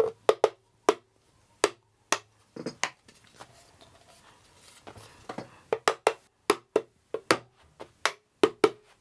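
A mallet knocking on a wooden canvas stretcher frame: a series of about twenty sharp wooden knocks, unevenly spaced, with a pause of a second or two in the middle. The taps drive the mitred corner joints closer together and seat the crossbars in the frame.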